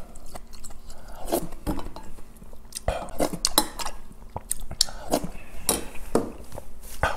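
A wooden spoon scraping and knocking against a stainless steel bowl in short, irregular strokes as the last food is scooped up, mixed with close-up chewing.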